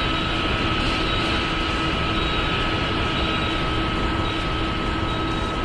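Steady industrial machinery noise, a constant mechanical drone with a high steady whine over it.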